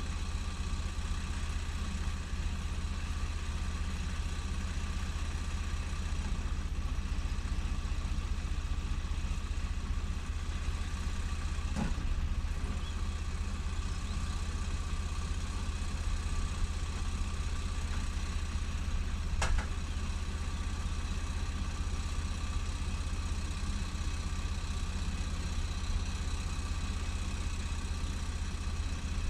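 Ford 3600 tractor's three-cylinder diesel engine idling steadily, with two short knocks about twelve and nineteen seconds in.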